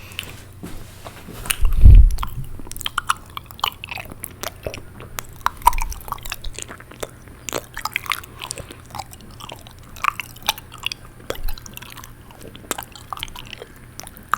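Close-miked wet mouth sounds: rapid, irregular tongue and lip clicks and smacks. A loud low thump about two seconds in.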